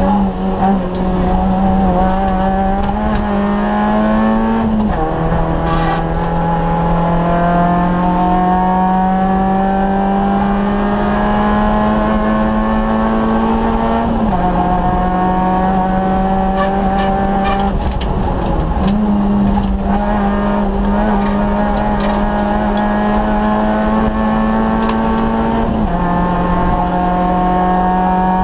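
Citroën Saxo VTS rally car's 1.6-litre 16-valve four-cylinder engine pulling hard at high revs, heard from inside the cabin. The engine note climbs slowly in each gear and drops sharply at gear changes, about three times, with scattered sharp clicks and ticks from the car over the road surface.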